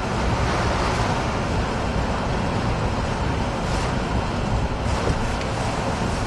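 Hurricane-force wind and driving rain buffeting a moving car, heard from inside the cabin: a loud, steady rushing noise with a heavy low rumble.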